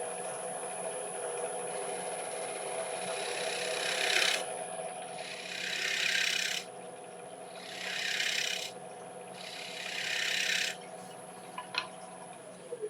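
Wood lathe running steadily with a high whine, while a shear scraper is drawn across the spinning Monterey cypress bowl in four passes, each a hissing scrape of about a second, starting about three seconds in. These are light finishing cuts taking off fine dust to remove a small bump.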